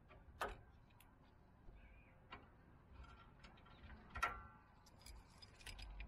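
Faint scattered clicks and metallic clinks of a wrench being fitted onto a stabilizer bar link nut, with the loudest, briefly ringing clink about four seconds in.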